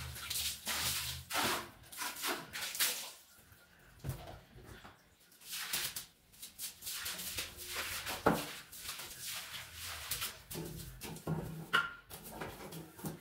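Stiff long-handled brush scrubbing a wet tiled floor in irregular bursts of strokes, after water is splashed across the tiles at the start.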